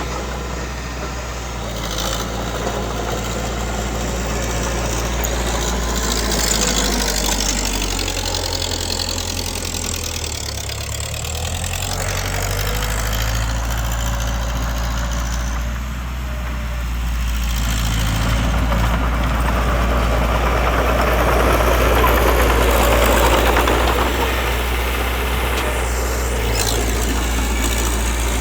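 Diesel engine of heavy earthmoving machinery running steadily under load, its level rising and falling and swelling loudest about two-thirds of the way through.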